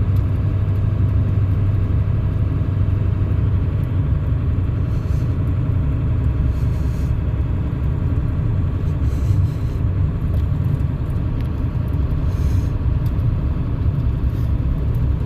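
Steady low engine and road rumble heard from inside the cab of a moving vehicle.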